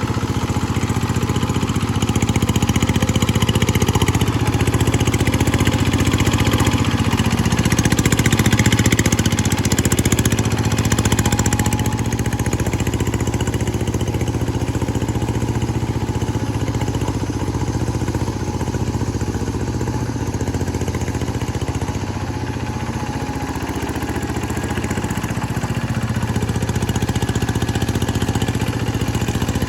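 G1000 Boxer hand tractor engine running steadily on a test run, its level swelling slightly in the first third and dipping a little about two-thirds through.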